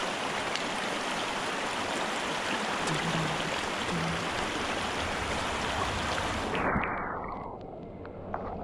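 Shallow creek water rushing steadily over rocks. About three-quarters of the way in, the microphone goes under the surface: the hiss cuts away and the water turns muffled and dull, with a few faint clicks.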